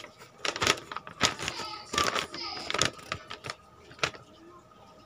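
A folded paper invoice being opened out and handled, the sheet crinkling and rustling in a run of sharp crackles over the first few seconds, then one lone crack about four seconds in.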